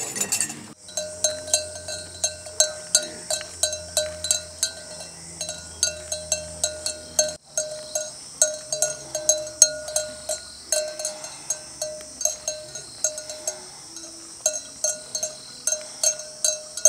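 A metal bell struck again and again in an uneven rhythm, about two to three strikes a second, each ringing on at the same clear pitch. It starts abruptly, breaks off for a moment about halfway through, then carries on.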